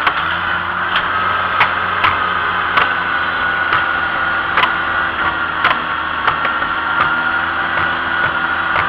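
Antique farm tractor engine running steadily under way on the road, with a steady high whine over the engine note and sharp ticks or knocks every half second to a second.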